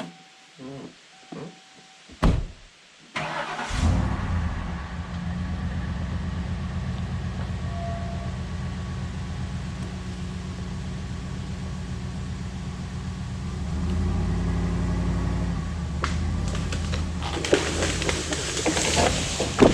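Skid steer engine beeps and cranks, starts about three seconds in and runs steadily, pulling a little harder later on. Near the end a small tree comes down with a loud crash of snapping branches.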